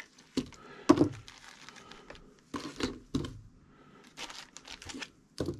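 Clear plastic bags crinkling in short, irregular bursts as packets of rigging-line spools are handled, the loudest crinkle about a second in.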